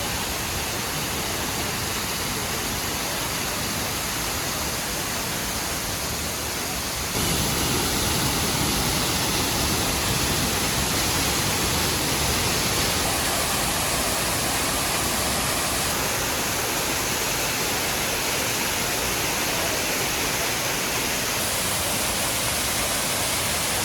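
Waterfall rushing: a steady wash of falling water that gets a little louder about seven seconds in.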